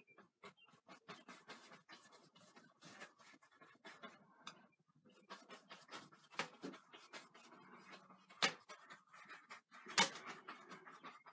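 Paintbrush brushing and dabbing on a canvas in quick, short, scratchy strokes, with a few sharper knocks in the second half, the loudest near the end.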